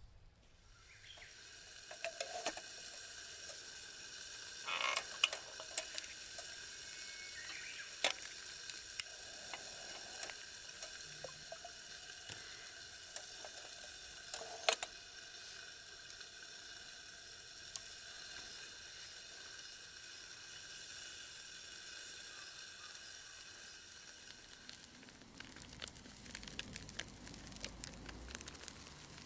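Wood fire hissing steadily with a thin whistling tone, with a few sharp pops. The hiss fades near the end, giving way to rustling.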